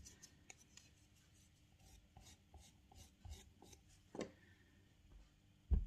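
Faint rubbing and scraping of fingers and a small tool on a soft clay cylinder, with scattered light taps. There is a sharper click about four seconds in and a low thump near the end.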